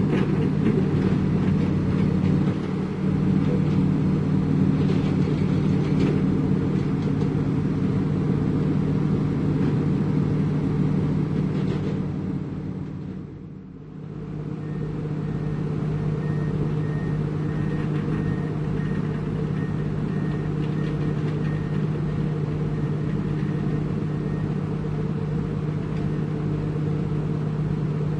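Heavy diesel construction machinery running steadily. The sound dips briefly just before halfway. In the second half a faint high-pitched beep repeats at an even pace.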